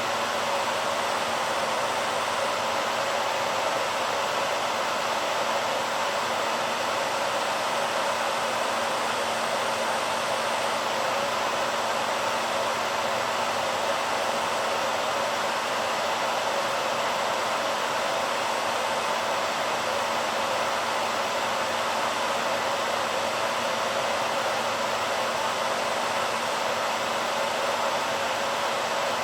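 BaByliss hair dryer running steadily: an even rush of blown air with a few faint steady whine tones inside it, unchanging throughout.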